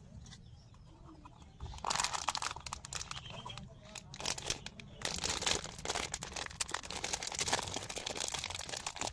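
Plastic candy wrapper being crinkled and torn open: dense crackling starts about two seconds in, eases briefly near the middle, then carries on.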